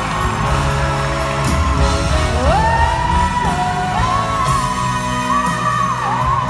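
Live concert music recorded from the audience: a female pop singer's voice slides up about two and a half seconds in and holds a long, slightly wavering note over piano and band accompaniment.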